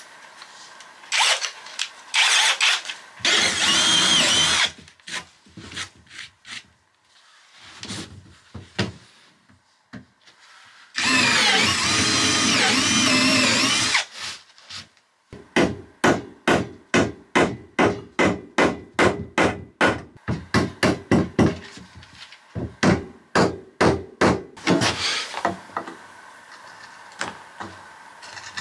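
Cordless drill driving screws into timber framing. It runs in bursts, with two longer pulls of a few seconds each in which the motor pitch rises and falls. From about halfway through comes a long run of evenly spaced sharp clicks, about three a second.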